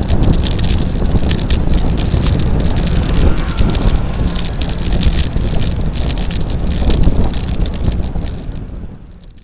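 Wind rushing over the microphone on a moving bicycle, a loud steady rumble with many small rattling clicks, fading out near the end.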